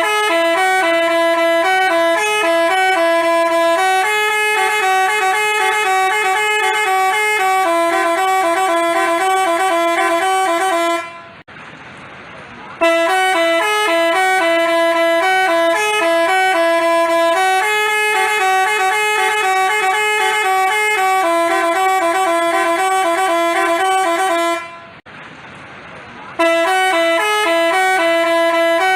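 Basuri telolet multi-tone bus horn playing its jingle, a quick stepping tune of a few notes. The tune runs about eleven seconds, breaks off briefly twice and starts over each time.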